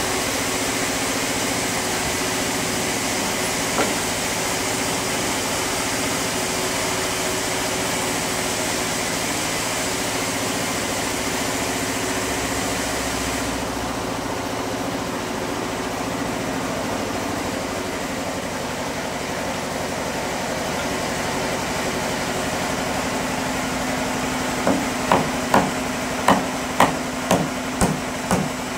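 Steady drone of sawmill machinery running. About four seconds before the end, a quick run of hammer blows on a wooden batten laid across sawn planks begins, about two to three strikes a second.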